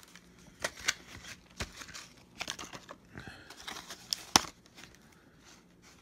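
Cardboard-and-plastic retail packaging being handled, with scattered crinkles and sharp clicks; the loudest snap comes a little past the middle.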